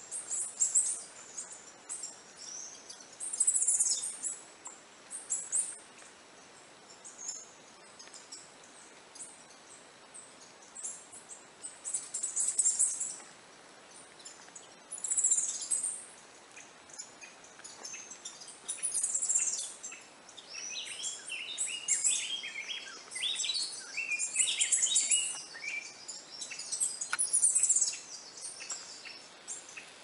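Birds chirping in short, high-pitched bursts every few seconds, some calls sliding down in pitch, with a busier run of chirps in the later part.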